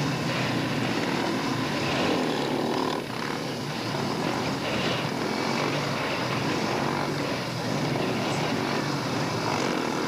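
Speedway motorcycles' 500 cc single-cylinder engines running steadily on the start line, with a brief dip in loudness about three seconds in.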